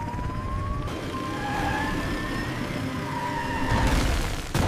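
Siren wailing in slow rising sweeps over a low, steady rumble, then a sudden crash near the end as the cracked road breaks away.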